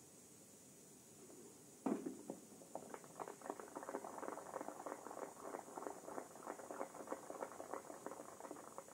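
A single shotgun shot about two seconds in, then spectators clapping for about six seconds.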